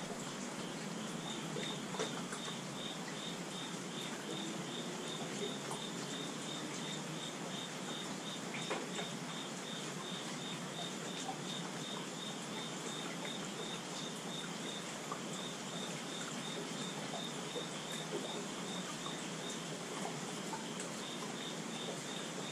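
Steady rainfall hiss with a few sharp drip taps, while an insect chirps in a steady high-pitched pulse repeating a few times a second.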